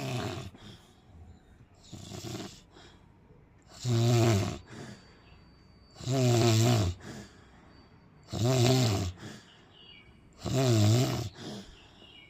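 Snoring in sleep: a rough, buzzing snore on each breath, about every two seconds. Two weaker snores are followed by four loud ones.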